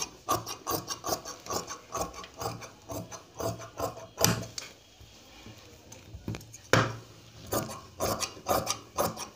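Large tailoring shears cutting through fabric on a table: a run of crisp snips, about three a second, that pauses briefly past the middle and then resumes.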